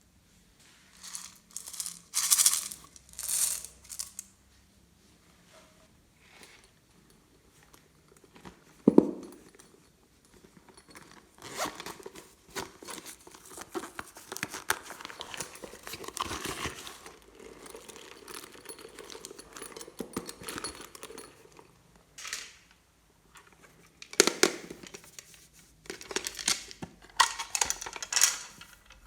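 Glossy slime being squished, stretched and pulled apart by hand, making sticky crackling, crinkling and popping sounds in separate bursts, with a longer busy stretch in the middle.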